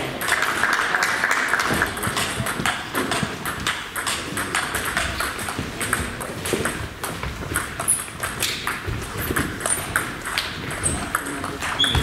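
Table tennis ball clicking back and forth between the bats and the table during a rally, with the clicks of play at a neighbouring table mixed in, irregularly spaced.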